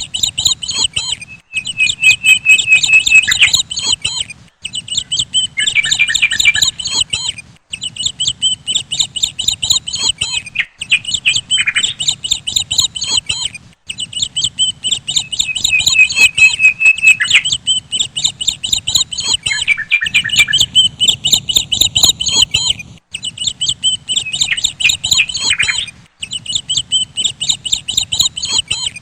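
Birds chirping loudly while being fed: high chirps repeated rapidly, several a second, in runs of a few seconds with short breaks between.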